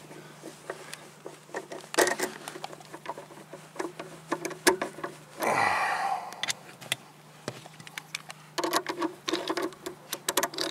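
Scattered clicks and knocks of tools being handled, with a brief noisy rustle about halfway; in the last couple of seconds a 10 mm socket ratchet starts clicking rapidly as it loosens the battery cable clamp nut.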